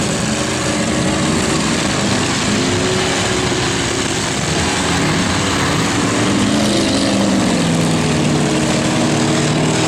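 Demolition derby cars' engines revving hard, several at once, their pitch climbing and falling as the drivers work the throttle.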